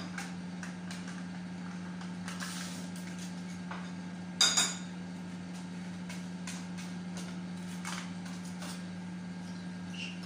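Metal spoon scraping and clinking against a small bowl as egg and yogurt are stirred together, with scattered light taps and a sharp double clink about four and a half seconds in. A steady low hum runs underneath.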